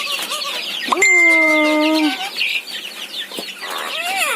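A shed full of chicks cheeping constantly in a dense high chorus. A louder, lower call is held for about a second, starting about a second in, and a short rising-and-falling call comes near the end.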